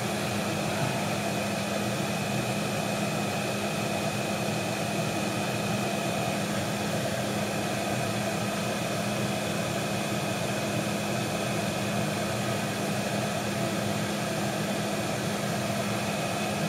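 Steady machine hum and hiss with a faint high whine, unchanging throughout, with no distinct events.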